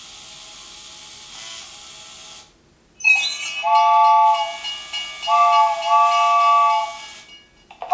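Qobo toy robot's speaker playing a steam-train sound effect: hissing steam, then a multi-tone train whistle blown twice, the second blast longer, triggered by the train music card.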